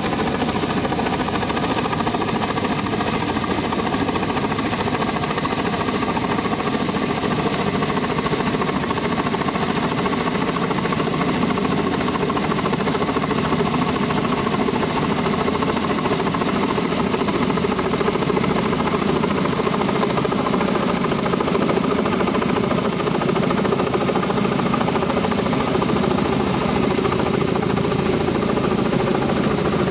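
Kamov helicopter running steadily overhead, a loud, unbroken mix of rotor and turbine engine noise with several steady tones in it.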